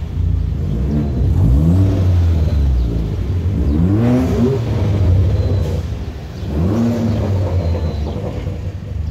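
Car engine idling with a deep rumble and revved three times, each rev a quick rise in pitch, about a second, four seconds and nearly seven seconds in.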